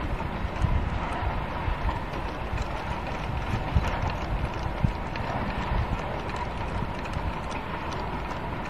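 Wooden wind whirligig clacking in an irregular, hoof-like rhythm as its propeller spins and works the figure's arm, with wind rumbling on the microphone.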